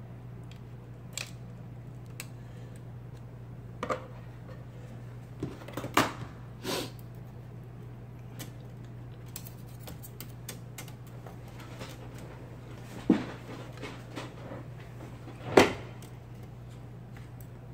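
IBM golf-ball typewriter with its motor humming steadily, and irregular mechanical clicks and clunks every few seconds, the loudest near the end.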